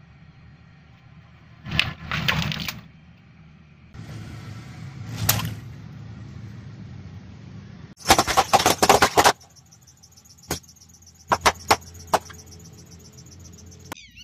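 Water balloons bursting under a car tyre as it rolls over them: a few single pops, then a rapid string of pops about two-thirds of the way through, followed by several more separate pops, over a low engine hum.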